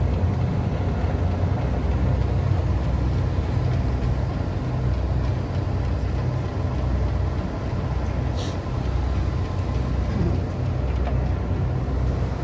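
1978 Monarch 613 engine lathe running with its spindle turning in a low speed range: a steady low hum with a slight pulse. A brief tick about eight and a half seconds in.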